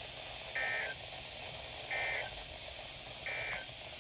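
Emergency Alert System end-of-message code: three short bursts of digital data tones, each under half a second, about a second and a half apart, closing the blizzard warning alert.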